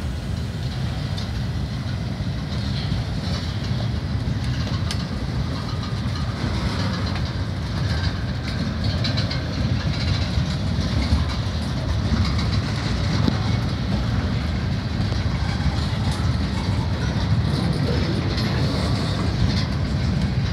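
Freight cars (boxcars and tank cars) of a Norfolk Southern train rolling past on the rails with a steady rumble of wheels on track, the train slowing to stop in a siding.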